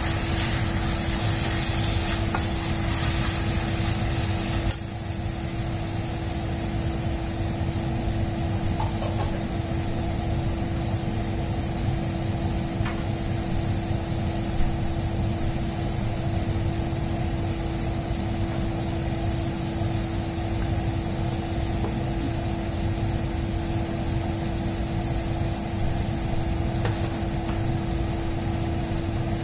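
Sliced kebab meat and tomato sizzling in a stainless steel frying pan over a steady hum. For the first few seconds a plastic spoon stirs and scrapes through the pan, ending with a knock, and a single tap comes about fifteen seconds in.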